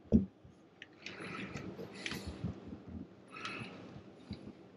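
Handling noise from fitting a kitchen faucet into a sink: a dull knock at the start, then soft rustling and scraping as the faucet body and its plastic-wrapped parts are worked into place.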